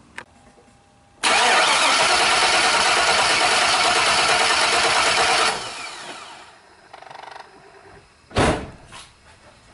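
Engine turned over on its starter for about four seconds during a compression test, with one spark plug out and a compression gauge in its hole. It starts suddenly, runs steadily, then cuts off and fades over about a second. A single thump comes about three seconds later.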